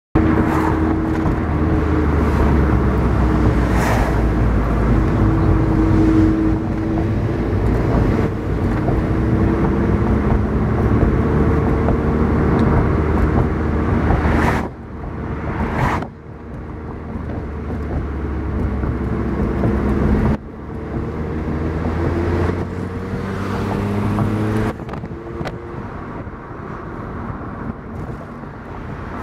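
Car driving along a street: steady engine and road rumble, with the engine's pitch slowly rising and falling as it speeds up and eases off. The sound drops suddenly a few times, about halfway through and again later.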